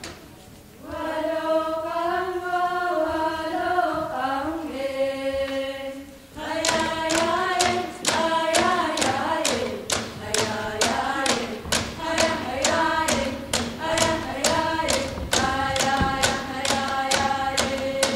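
Group of young voices singing a Greenlandic drum-dance song in unison. It begins unaccompanied, and about six seconds in the Greenlandic frame drums (qilaat) come in, struck together at about two beats a second under the singing.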